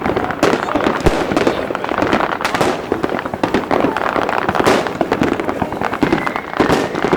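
New Year fireworks going off without pause: a dense run of overlapping bangs and crackles.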